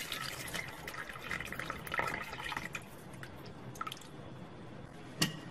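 Water poured from a jug into a pot of broth, splashing and dripping. It thins out over the last couple of seconds, with one short knock near the end.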